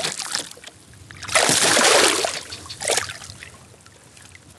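Small northern pike thrashing at the surface beside a kayak while held on the line: a burst of splashing about a second in, a shorter splash a little later, then quieter water sounds.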